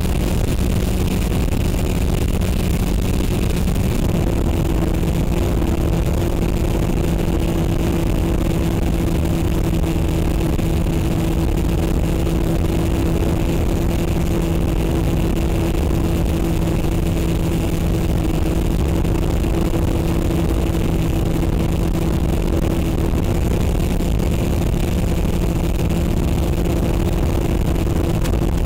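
Onboard sound of an FPV model aircraft's electric motor and propeller in flight: a steady hum over heavy wind rush. Its pitch drops slightly about four seconds in.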